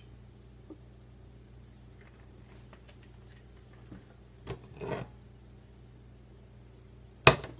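A stainless steel saucepan is handled on a glass-top electric stove while the oil in it is swirled around. There are light taps and a short scrape of metal midway, then the pan is set down with one sharp clank near the end, over a faint low hum.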